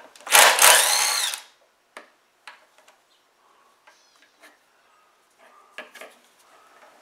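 Power drill-driver run in one short burst of about a second, its motor pitch rising and falling, followed by a few light clicks and taps of tools and parts.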